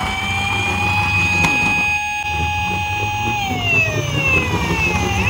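Toy police car's electronic siren wailing: a held tone that slides down in pitch about three and a half seconds in and starts rising again near the end. Underneath is a low rumble of the toy's wheels rolling on the wooden slope.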